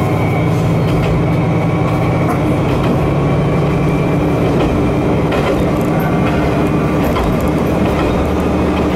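Kanto Railway Joso Line diesel railcar running along the line, heard from inside the car: engine drone with wheel and rail noise. The drone drops lower in pitch about halfway through, with a faint high wheel squeal.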